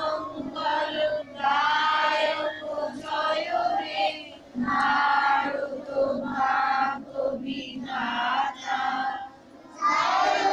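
A group of children and women singing together in unison, in short held phrases of about a second with brief pauses between them, louder near the end.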